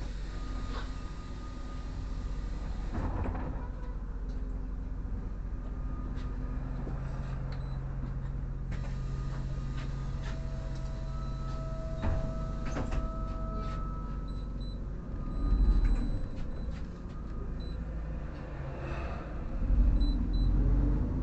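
Interior of a city bus standing at a stop: the engine runs steadily while the passenger doors work, with clicks and knocks. Two steady whining tones sound in the middle, and there are two louder swells of noise near the end.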